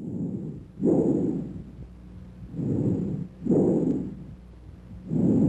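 Bronchial breath sounds from a human chest: repeated rushing breaths, about one cycle every two and a half seconds, each expiration following its inspiration after a short silent gap.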